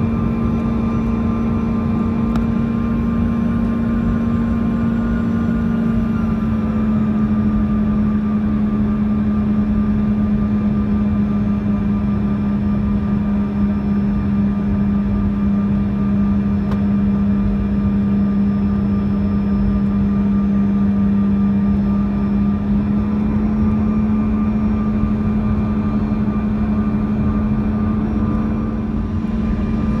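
Cabin sound of a Bombardier CRJ-200 regional jet, its rear-mounted General Electric CF34 turbofan engines running steadily over a low rumble. The steady hum drops slightly in pitch about six seconds in and rises again in the last several seconds.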